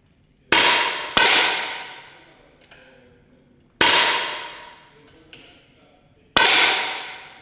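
Air rifles fired on an indoor 10-metre range: four sharp cracks, the first two in quick succession, each dying away in the hall's echo over about a second.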